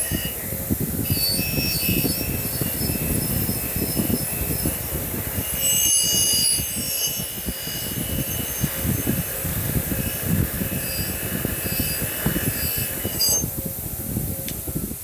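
Wire wheel on a bench grinder running, with a steel axe head pressed against it: a steady scratchy rasp and a high whine as the wire bristles strip rust, paint and patina from the head. The high whine stops shortly before the end.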